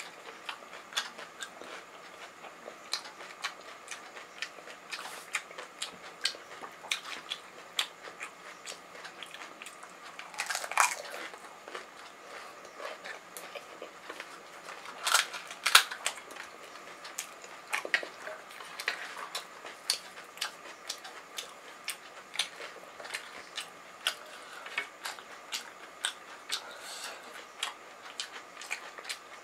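Close-up chewing of pani puri: crisp fried puri shells crunching and crackling in the mouth as many short clicks, with a few louder crunches about ten and fifteen seconds in.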